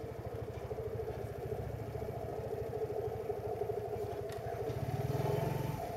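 Suzuki cruiser motorcycle engine running at low speed. It gets a little louder about five seconds in, then eases off just before the end.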